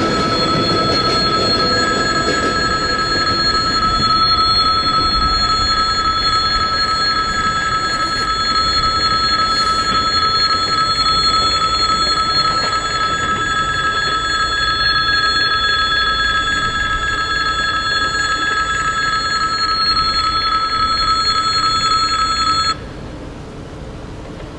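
Railway level-crossing warning bell ringing steadily while the crossing signals are active, cutting off abruptly near the end. A departing electric train's rumble fades in the first second.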